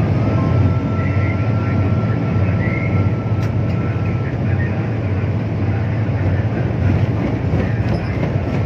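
Steady low rumble of vehicle traffic, with a faint thin whine in the first half.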